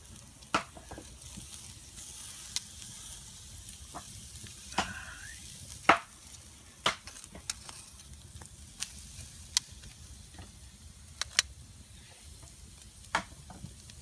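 Gammon steaks sizzling on a wire grill rack over campfire embers, a steady hiss. Every second or so comes a sharp click as metal tongs turn the steaks against the rack.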